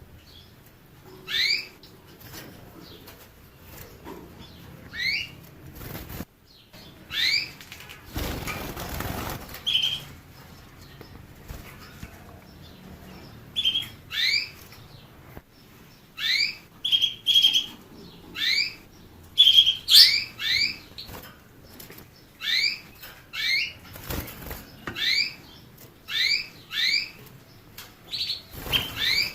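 A canary calling in short rising chirps, repeated about once a second, with a few brief steady whistles between them. Its wings flap in a burst of noise about eight seconds in and twice near the end.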